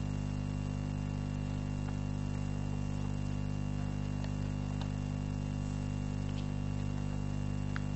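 Steady electrical mains hum with a constant hiss, picked up through the sound system or recording line, with a few faint clicks.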